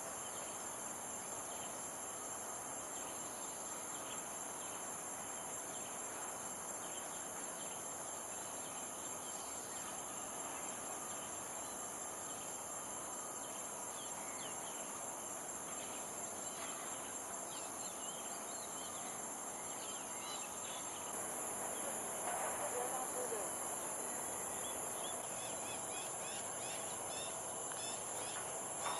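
A steady high-pitched insect drone runs throughout. Scattered short bird chirps come through faintly in the second half.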